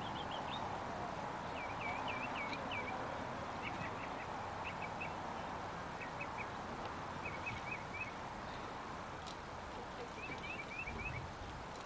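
Birds chirping in quick runs of three to five short high notes, repeating every second or two, over a steady background hiss.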